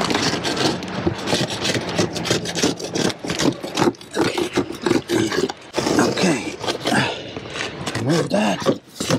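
Metal scraper rasping along the edge of a skylight frame in quick, irregular strokes, scraping off the old disintegrated gasket and sealant residue.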